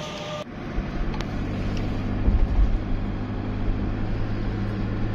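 Steady low drone of a car's engine and road noise heard from inside the moving car.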